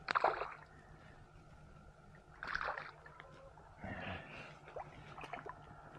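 Hooked catfish splashing at the water's surface beside a kayak: a few short, separate splashes spread across several seconds.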